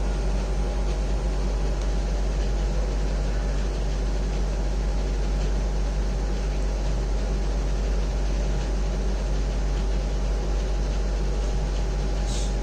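Steady mechanical hum and hiss, unchanging throughout, with a faint steady tone in it; a brief hiss near the end.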